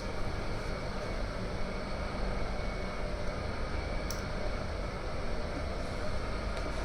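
Steady low mechanical rumble of running machinery, with a single sharp click about four seconds in.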